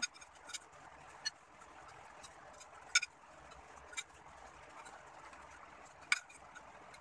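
Spoons and forks clinking and scraping on dinner plates: several sharp clinks a second or so apart, the loudest about three seconds in and about six seconds in, over a steady soft hiss.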